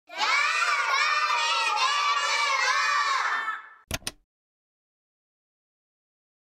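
A group of children's voices shouting together for about three and a half seconds, then two sharp clicks close together from a conductor's ticket punch clipping a notch.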